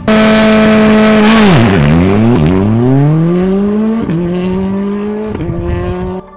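Hyundai i20 rally car's engine held at high revs, then launched: the revs dip sharply twice with a hiss of wheelspin on loose gravel, then climb in long rising sweeps with gear changes about four and five and a half seconds in, fading as the car drives away. The sound cuts off suddenly near the end.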